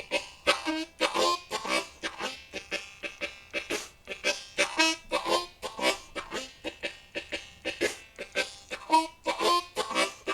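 Unaccompanied blues harmonica on a Low F Hohner Marine Band Crossover, played in 2nd position: short rhythmic chordal stabs in a shuffle groove, with a few held, bent single notes.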